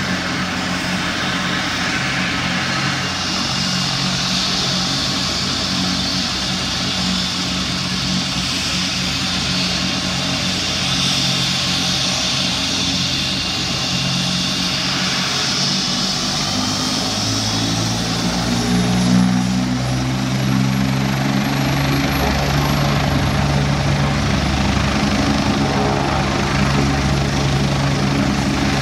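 Twin-turbine medical helicopter running with its rotor turning, a steady high turbine whine over a low rotor beat. A little over halfway through, the low tones step up in pitch and grow louder as the rotor speeds up.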